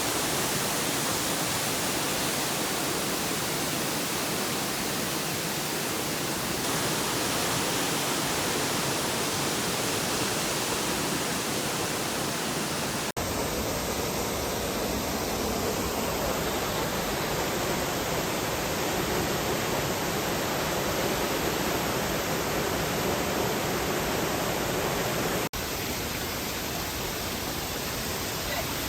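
Steady, dense rush of water from the first of the Nauyaca waterfalls, a massive fall pouring into its pool. It drops out for an instant twice, at cuts.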